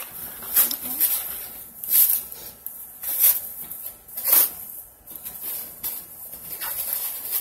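Plastic cling wrap being ripped and peeled off a tightly wrapped bundle, crinkling and crackling in short, uneven bursts about once a second.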